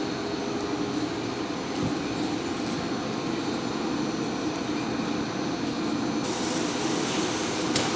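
Plywood veneer glue spreader running, its rollers and drive giving a steady mechanical drone; a higher hiss joins about six seconds in.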